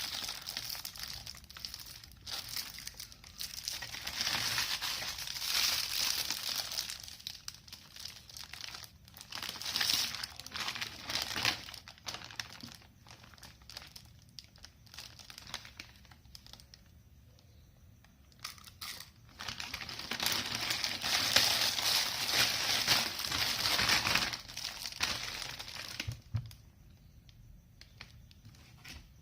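Plastic packaging crinkling and tearing in irregular bursts, with a couple of quieter pauses, as it is handled and opened.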